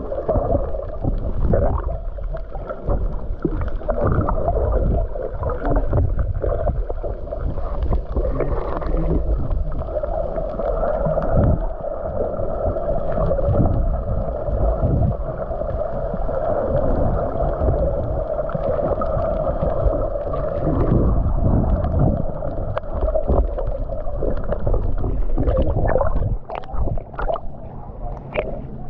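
Muffled rushing and gurgling of water with a low rumble, heard from a camera on a sailing kayak at sea.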